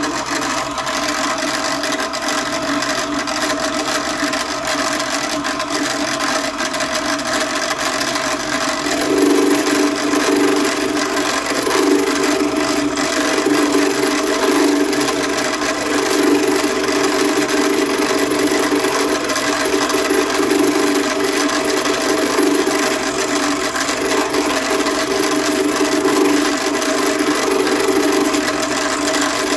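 A 2M112 bench drilling machine runs at about 1400 rpm, used as a milling machine, with an end mill cutting an oiled keyway into a shaft. There is a steady hum of motor and spindle with the grinding scrape of the cutter in the metal, which grows louder and pulses from about nine seconds in.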